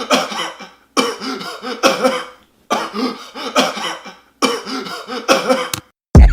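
A person coughing hard in four long fits, each a second or so, with short breaks between. Hip-hop music with a heavy bass comes in abruptly near the end.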